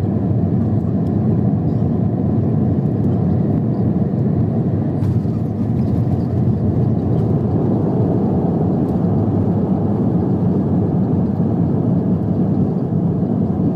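Steady low rumble of an airliner cabin in flight: engine and airflow noise that holds an even level throughout.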